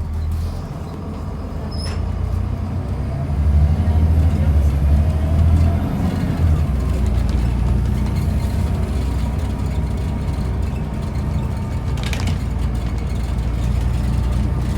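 Volvo B7TL bus's six-cylinder diesel engine running steadily under way, swelling louder for a couple of seconds near the start before settling. A single sharp knock about twelve seconds in.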